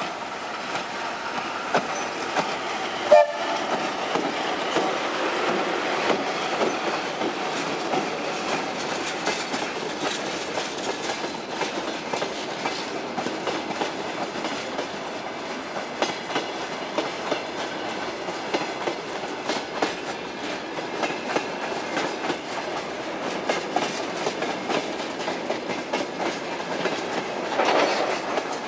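A VL8m eight-axle DC electric locomotive and its long freight train of open wagons rolling past at speed: a steady rolling noise with a rapid clickety-clack of wheels over rail joints. One brief, much louder sharp sound about three seconds in.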